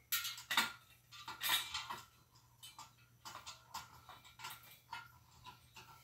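Small metal ceiling-fan parts and hardware clinking and rattling as they are handled: a run of sharp clicks and scrapes, loudest in the first second and a half, then lighter clicks.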